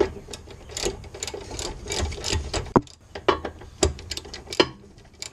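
Hand ratchet wrench clicking in a rapid, uneven run of clicks as a 17 mm brake caliper bracket bolt is loosened and backed out. The clicking stops near the end.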